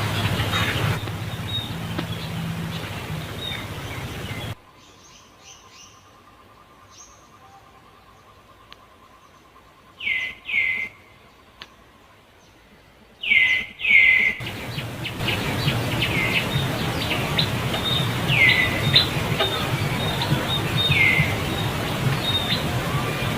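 Short high-pitched animal calls, each sliding quickly down in pitch, come singly and in pairs several times over a steady outdoor background noise.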